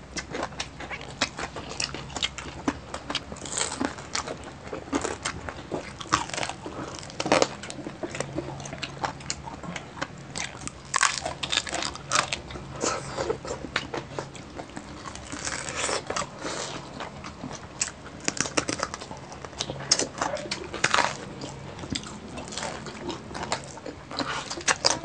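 Two people biting and chewing crispy deep-fried pork knuckle skin, close up: irregular sharp crunches among steady chewing.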